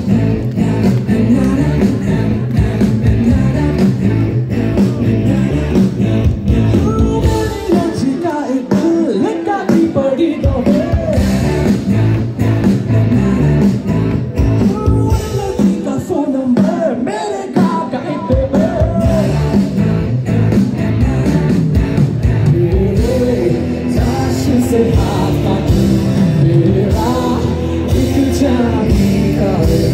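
Live band playing through a stage PA, with guitars and a lead singer over a steady beat. The bass and drums drop out briefly twice, about a quarter and a half of the way through.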